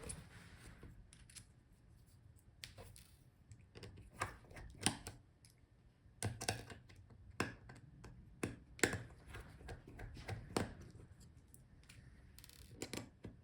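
Faint, irregular small clicks and taps of a screwdriver working tiny screws out of a laptop's chassis, a dozen or so scattered sharp ticks.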